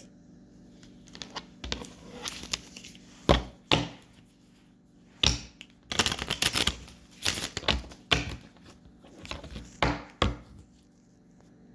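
A deck of oracle cards being shuffled and handled on a table: irregular clicks, taps and short papery rustles, with a brief flurry about six seconds in.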